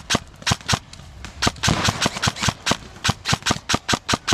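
Airsoft gun firing rapid single shots, about four sharp cracks a second, with a brief louder rush of noise about two seconds in.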